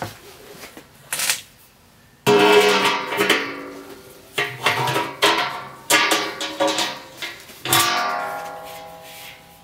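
Acoustic guitar music: a run of strummed chords, each starting sharply and ringing out before the next.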